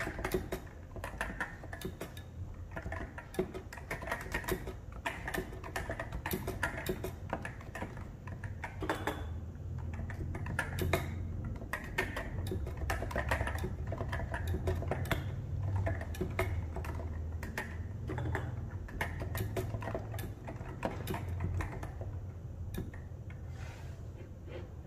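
Continuous typing on a Realforce R2 RGB keyboard with Topre electro-capacitive switches and tall SA keycaps: a steady stream of rounded, thocky keystrokes at varying pace, with deeper thuds from larger keys now and then.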